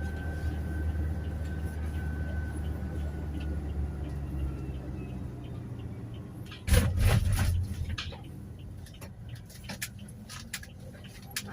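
Toyota Hiace Commuter van running: a steady low rumble of engine and road noise that dies away about halfway through. About two thirds in comes a sudden loud noise lasting about a second, followed by quieter scattered clicks.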